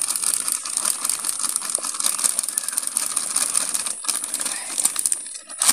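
Plastic flour packet crinkling in the hand as flour is poured out of it in a stream into a steel bowl, a dense crackle that thins out just before the end.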